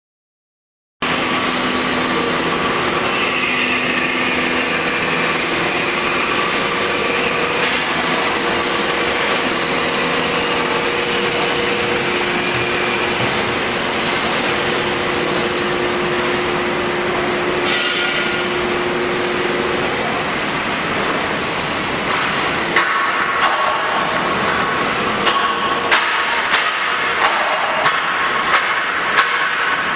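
Elastic tape dyeing and finishing machine running: a loud, steady mechanical noise with several humming tones. It starts abruptly about a second in, and from about two-thirds of the way through a series of sharp knocks or clicks joins it.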